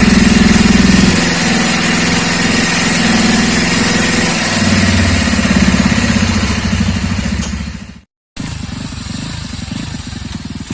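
Honda GL motorcycle's single-cylinder four-stroke engine, built up to 200 cc, running with a steady pulsing beat. About eight seconds in it fades out to a brief silence, then runs on more quietly.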